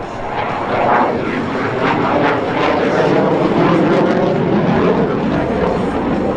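Loud jet noise from a CF-18 Hornet fighter's twin General Electric F404 turbofan engines as it flies by. It grows louder about a second in, then holds loud with a rough, rasping texture.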